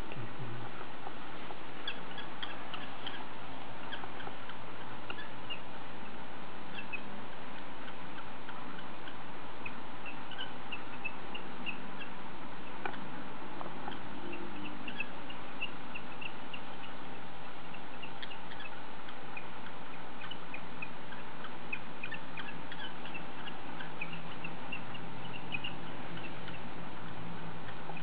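Steady background hiss with a faint hum, and many short, faint high chirps scattered throughout.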